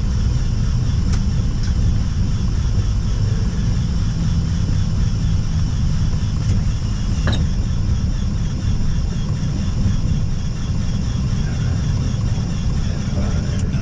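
Airbus A320 cockpit noise while the aircraft rolls on the ground after touchdown: a steady low rumble, with a few faint clicks.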